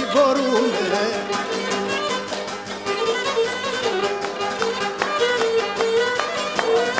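Instrumental passage of a Cretan syrtos: a Cretan lyra plays the bowed melody over fast, even strumming from a plucked accompaniment.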